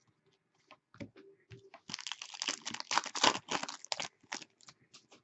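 A crinkly hockey card pack wrapper being torn open and crumpled, a dense crackling burst lasting about two seconds, with scattered sharp clicks before and after as the cards are handled.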